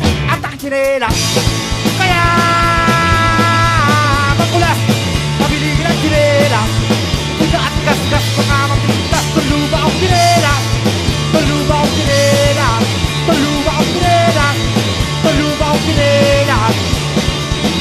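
Rock music with drums and a steady bass line, with a brief drop about half a second in before it carries on.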